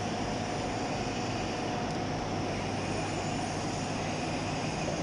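Steady drone of running machine-shop machinery, with a faint steady whine held throughout.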